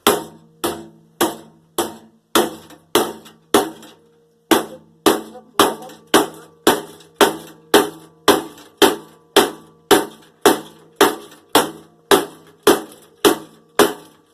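Hammer striking the metal parts of a microwave oven over and over, about two blows a second, each leaving a ringing metallic tone, with a short pause about four seconds in.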